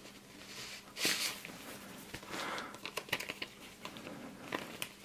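Clear plastic wrap crinkling and rustling in the hands as a game box is worked out of it, in a few short, faint bursts with small clicks near the end.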